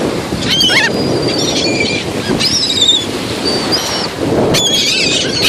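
A flock of seagulls calling with repeated short squawks, several at once about four and a half seconds in, over a steady rush of surf and wind on the microphone.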